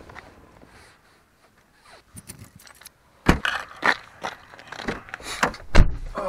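Keys jingling and a run of clicks and knocks as a car door is opened and a person gets into the car. The car door then shuts with a heavy thump near the end, the loudest sound here.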